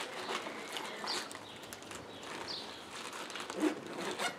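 Short bird chirps over the rustle and light knocks of radio gear being packed into a fabric backpack, with one louder knock near the end.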